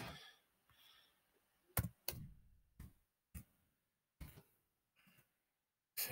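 About six sharp, scattered clicks of computer keys and a mouse while a short piece of text is typed in and confirmed.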